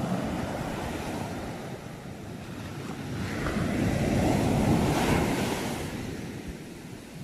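Sea waves surging and washing ashore: one swell builds to its loudest about halfway through, then falls away.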